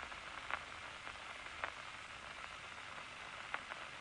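Steady hiss with a few sharp clicks from a loudspeaker playing the amplified electrical activity of a locust's nerve cord, at rest with no large spikes because the eye is not being stimulated.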